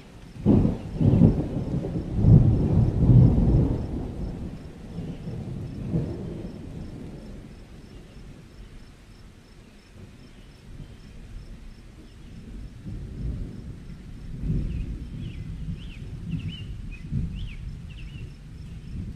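Rolling thunder, a deep rumble loudest in the first few seconds that swells again later on. A few faint high chirps come near the end.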